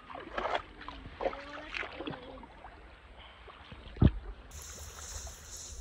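Water splashing and sloshing in a shallow creek as a jungle perch is released by hand, in a run of irregular splashes over the first two seconds. About four seconds in comes a single sharp thump, the loudest sound.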